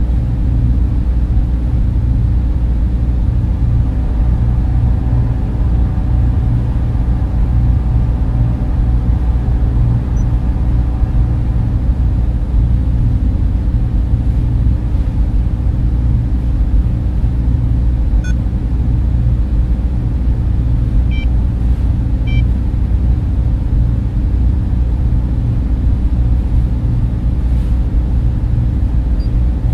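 Steady deep rumbling drone of a sci-fi ambience track, with a faint higher hum in the first half and a few small electronic blips about two-thirds of the way through.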